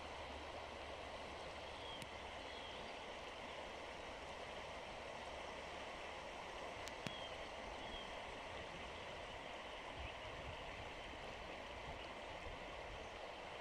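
Shallow river water running steadily over stones. A sharp click about seven seconds in, and faint short high chirps twice.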